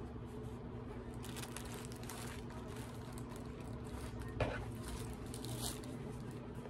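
Faint rustling and handling of a purse and its shoulder strap as the strap is clipped on, with a single sharp click about four and a half seconds in, over a steady low room hum.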